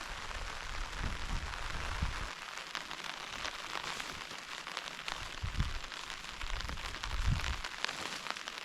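Rain falling steadily, with many separate drops ticking sharply and a few low thumps.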